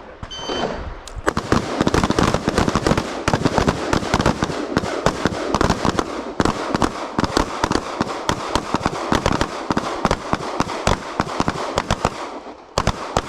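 A short electronic shot-timer beep, then rapid, overlapping gunfire from several shooters on the line firing rifles and pistols in a transition drill. The shots come several a second, thinning briefly near the end before resuming.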